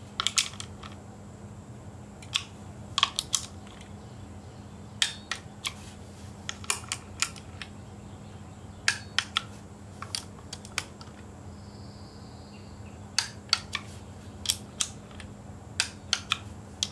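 Socket wrench ratchet clicking in short bursts of a few clicks, a second or two apart, as the engine cover bolts are run down in a star pattern.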